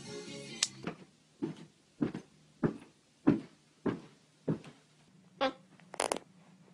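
Hands thumping step by step down a staircase as a man crawls head-first down it: a steady run of about eight thumps, nearly two a second. Near the end come two short yips from a husky puppy.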